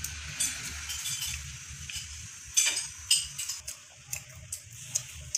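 Mouth sounds of a child eating a sugar-glazed donut: irregular small wet smacks and clicks, with a few sharper ones in the second half.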